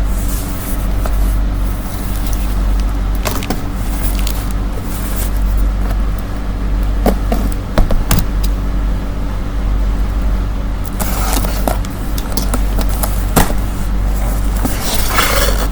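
A steady low drone, with scattered sharp clicks and knocks and brief bursts of rustling.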